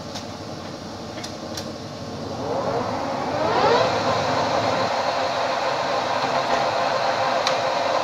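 Summit 25 engine lathe running with a steady gear-train hum and a couple of light clicks, then speeding up about two and a half seconds in with a rising whine, and running on louder and steady at the higher speed.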